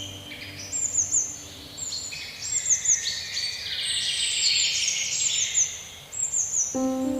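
Several songbirds chirping and singing, one repeating a short, high, falling call again and again over other calls. Soft sustained music comes in near the end.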